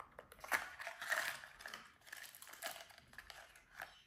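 Handling of small packaging: crinkling and rustling with irregular small plastic clicks as the parts of a wireless microphone kit are taken out of their little box.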